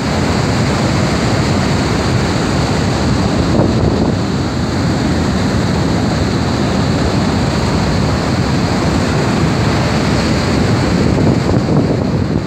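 Niagara Falls: the steady, loud roar of the falling water.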